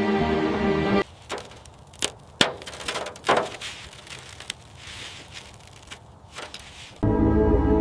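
Music for about the first second, then roughly six seconds of scattered sharp knocks, cracks and clanks at uneven spacing, about eight of them, before music returns near the end.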